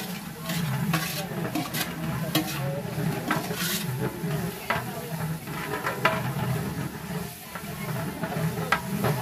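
A long-handled metal ladle scraping and knocking irregularly against a large aluminium cooking pot as onions and green chillies are stirred in hot oil, with the ingredients sizzling as they fry.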